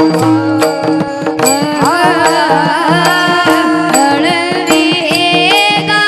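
Marathi devotional bhajan: a boy's voice sings a gliding, ornamented melodic line over a steady held drone, with a hand drum keeping a regular beat.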